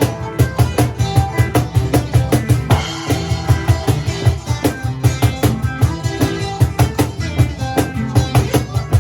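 Band playing improvised rock: a drum kit keeps a fast steady beat of about four hits a second over bass and electric guitar.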